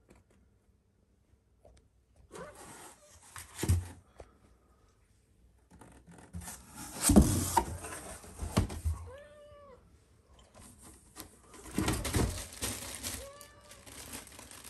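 A cat scratching and pawing at cardboard inside a box, in three bouts of scraping and rustling with a few sharp knocks, the loudest about seven seconds in. Two short meows come about nine seconds in and near the end.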